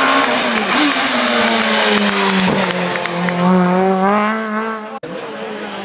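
Rally car engine passing at speed. Its note dips, then climbs and wavers as it accelerates away. It cuts off abruptly about five seconds in and a second engine note takes over.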